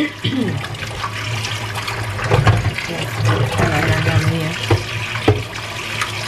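Kitchen tap running into a stainless steel sink, the stream splashing over raw chicken pieces as they are rinsed by hand in a frying pan, with a few sharp knocks.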